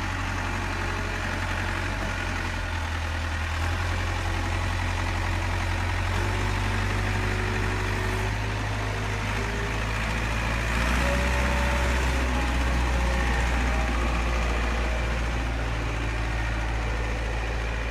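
A 1/14 metal RC Caterpillar 973D track loader model running, with a steady low diesel-engine drone that grows louder about 11 seconds in as the loader drives.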